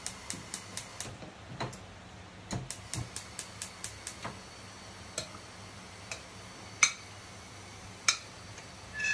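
Butter melting in hot oil in a kadai, giving runs of quick light ticks, about four or five a second. Near the end come a few louder ringing clinks of the steel ladle against the pan.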